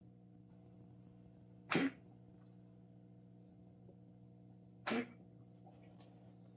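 A cat coughing: two short coughs about three seconds apart.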